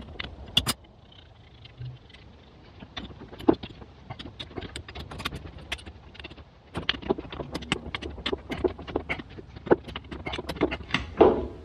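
An irregular run of sharp clicks, knocks and light metallic rattling, with a quieter stretch from about one to three seconds in and a short lull near the middle.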